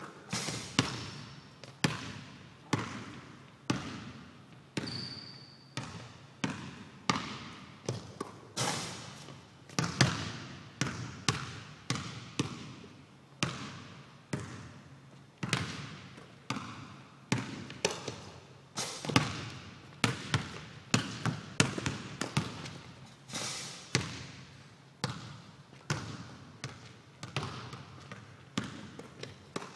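A basketball bouncing over and over, sharp irregular bounces about one or two a second, each with a short ringing tail. A brief high squeak about five seconds in.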